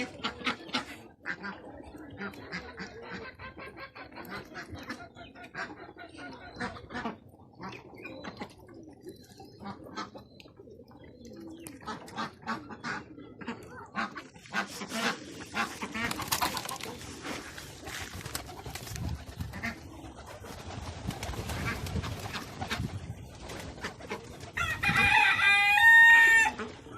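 Domestic chickens clucking, and near the end a rooster crows once, loudly.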